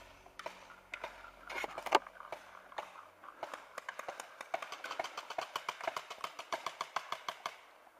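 Paintball markers firing: scattered sharp pops, one louder than the rest about two seconds in, then a rapid string of shots at about six a second from about three and a half seconds in, stopping shortly before the end.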